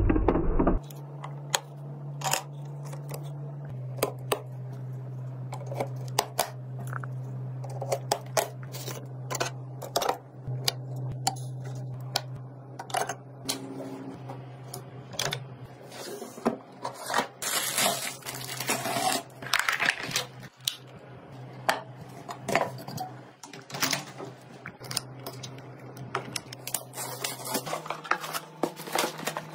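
Close-up handling sounds of computer parts being fitted and unboxed: many sharp clicks, taps and light knocks of hard plastic and metal, with a few stretches of rustling, over a steady low hum.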